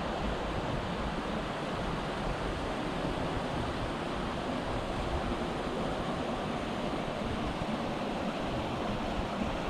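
River water rushing steadily, an even noise with no separate events.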